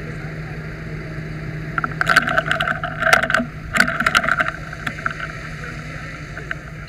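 Fire hose nozzle spraying water over the steady hum of a running fire engine. A loud, crackly burst lasts from about two to four and a half seconds in.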